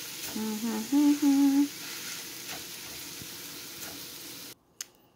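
Instant fried noodles sizzling in oil in a frying pan as they are stirred, with a person humming a few short held notes about a second in. The sizzle cuts off suddenly near the end.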